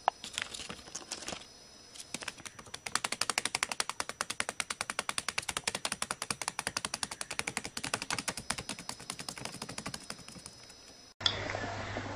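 Budgerigar pecking at paper or cardboard: a fast, even run of sharp beak taps, several a second, after a few scattered taps at first.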